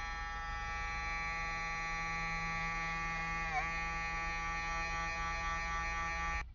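Steady electric motor buzz with many overtones, dipping briefly in pitch about three and a half seconds in as if momentarily loaded, then cutting off abruptly near the end.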